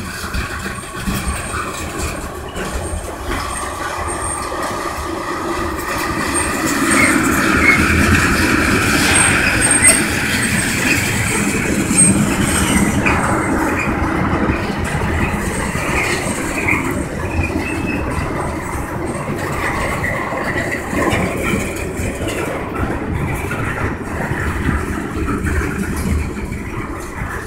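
Freight train of tank cars and loaded centerbeam flatcars rolling past close by: a steady rumble of wheels on rail, with drawn-out high-pitched wheel squeals coming and going, loudest in the first half.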